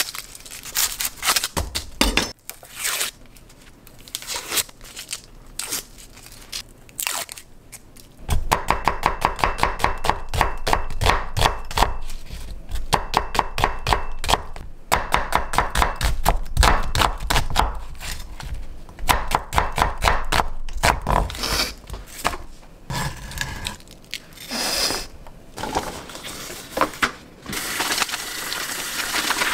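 A knife slicing an onion on a wooden cutting board. A few scattered clicks come first, then from about eight seconds in a long run of quick, even knife strokes on the board, several a second, which thins out a little after twenty seconds. Near the end, tap water starts running into a steel sink as dishes are washed.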